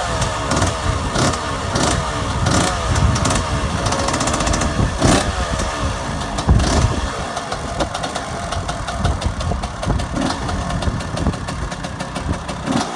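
1996 KTM 125 two-stroke engine with an FMF exhaust, running after a cold start without choke. Through the first half its throttle is blipped over and over, the revs rising and falling about every half second or so; after that it runs more steadily.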